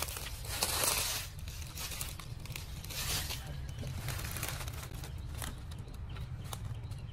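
Dry leaf litter rustling and crunching as it is disturbed, loudest about a second in and again around three seconds, over a steady low rumble.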